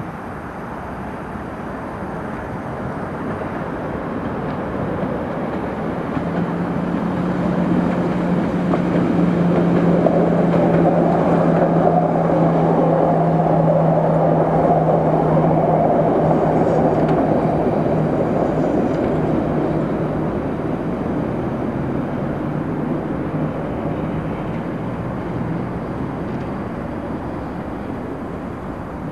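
A coupled pair of Tatra T3 trams passing by: rolling noise of the wheels on the rails builds to its loudest in the middle and then fades away, with a low steady motor hum that drops in pitch as the trams go past.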